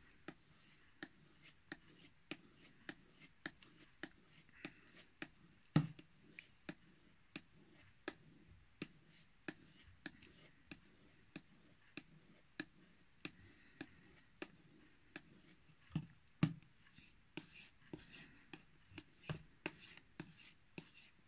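Kitchen knife being stropped on a leather strop glued to a wooden paddle and loaded with wax compound, honing the edge: quiet back-and-forth strokes rubbing over the leather, with a light tick about every two-thirds of a second and a couple of louder knocks.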